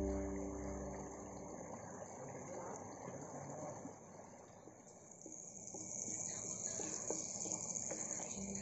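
Background music fades out in the first second. About halfway through, a steady high-pitched insect trill from crickets comes in over a faint ambient hiss.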